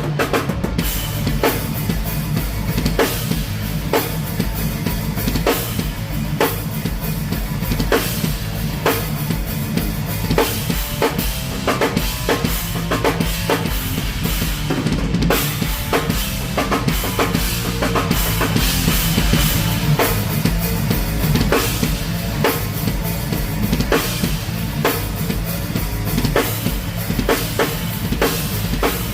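Live band playing a song at full volume, with the drum kit's kick and snare hits most prominent over sustained bass and guitar.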